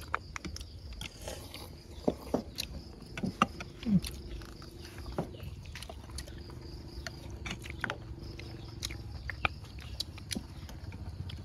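Eating sounds: utensils clicking and tapping against bowls in scattered, irregular strokes, with chewing between them.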